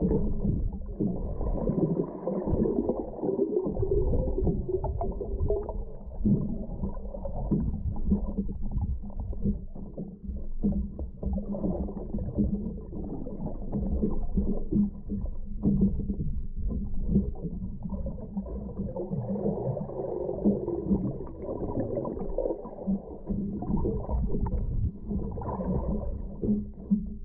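Muffled underwater sound picked up by an action camera in its waterproof housing while a snorkeler swims and dives: a low rumble with a steady hum, broken by many small knocks and bubbling movements of the water.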